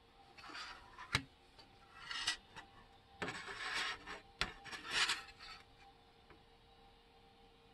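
Rubbing and scraping as the printer's removable bed plate is handled and shifted on a countertop, in irregular bursts, with a sharp click just over a second in and another about four and a half seconds in.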